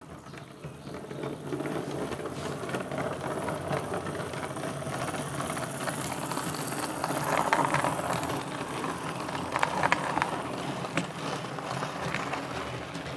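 Model railway diesel locomotive on a DCC layout running past with its wagons: a continuous whirring run of motor, gears and wheels on the track. It grows louder as the train comes closest, a little past halfway, with a few sharp clicks as the wheels cross the track.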